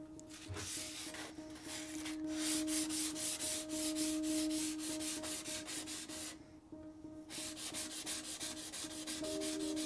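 Sandpaper scrubbed back and forth over the steel blade of a Disston Warranted Superior skew-back handsaw, taking off rust and grime in quick strokes. The strokes come about five a second, get louder about two seconds in, and stop briefly about two-thirds of the way through.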